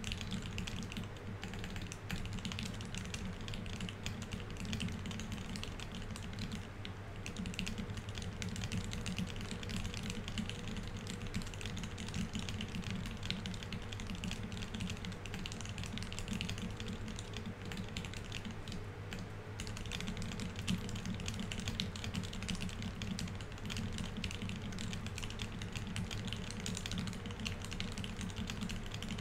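Fast, continuous typing on a Keycult 1/65 mechanical keyboard with Tealios V2 67g linear switches, C3 stabilizers and GMK Oblivion keycaps: a rapid, even stream of keystroke clacks with no pauses.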